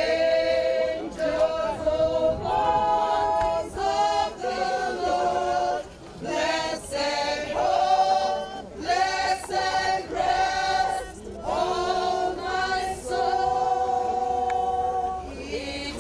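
A group of voices singing together unaccompanied, in phrases of long held notes.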